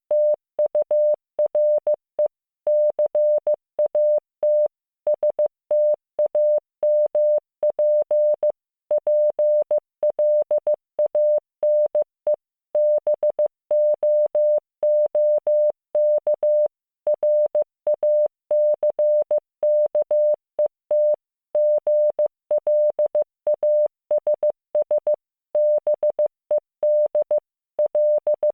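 Morse code practice tones from CW training software: one steady mid-pitched beep keyed on and off in short dots and longer dashes, spelling out English words letter by letter with brief pauses between letters and words.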